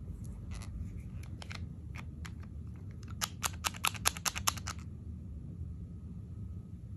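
Clear slime being squeezed and stretched by hand, making sticky clicking pops: a few scattered clicks, then a quick run of about ten louder pops in the middle, over a steady low hum.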